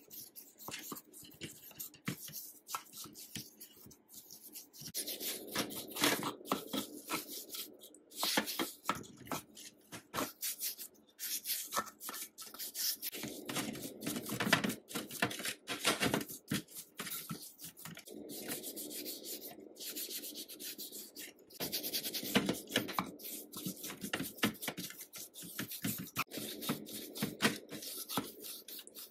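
Brush scrubbing rusty metal sewing machine parts in a shallow tray of foamy cleaning liquid: wet, scratchy scrubbing in bouts of quick strokes with short pauses.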